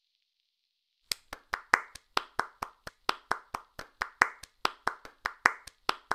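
A person clapping hands in a quick steady rhythm, about five claps a second, starting about a second in.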